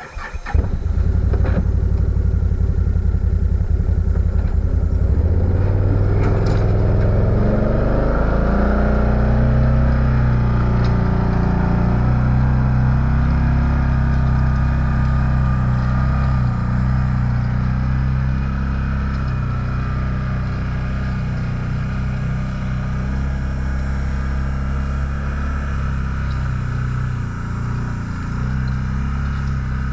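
Can-Am off-road vehicle's engine in four-wheel drive, running under load while dragging a harrow through tilled soil. It picks up revs about five seconds in and then holds a fairly steady pull.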